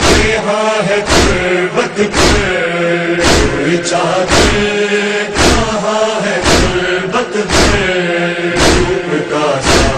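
Group of men chanting a noha in unison, with their chests beaten in matam (hand-on-chest mourning strikes) in a steady rhythm of about one strike a second.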